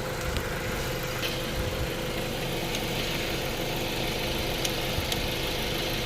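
Car engine idling steadily with the air-conditioning compressor running, heard close up under the bonnet, with a few faint clicks.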